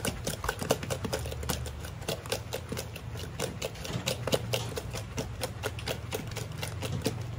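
Granulated garlic being shaken from a spice container into a glass bowl of flour: a quick, uneven run of small clicks and taps over a faint low hum.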